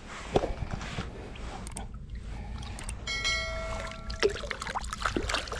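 Shallow lake water sloshing and splashing around hands and a pike as the fish is released back among the rocks, with a few sharp knocks.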